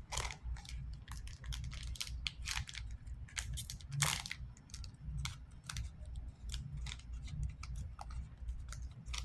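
Trading cards and foil pack wrappers being handled: a busy run of small clicks, flicks and rustles, with a louder rustle about four seconds in.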